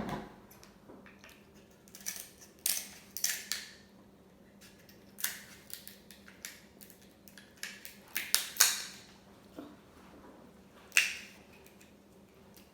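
Close-up eating sounds of a crab claw being broken open and picked at: sharp cracks and clicks of shell at irregular intervals, the loudest about two-thirds of the way through and another near the end.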